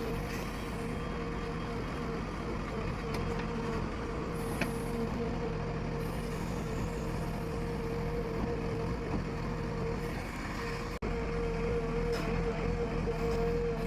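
Diesel engine of a JCB backhoe loader running steadily with a constant hum, with one sharp click about four and a half seconds in.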